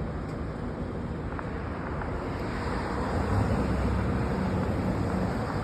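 Wind on the microphone over a low rumble of traffic, swelling a little midway.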